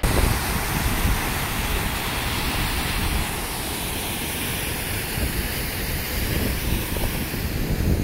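Waterfall on a mountain creek: whitewater cascading over granite ledges in a loud, steady rush, a little quieter from about three seconds in.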